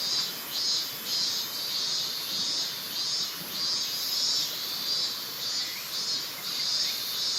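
Insects calling in a steady pulsing chorus, high-pitched, about two pulses a second.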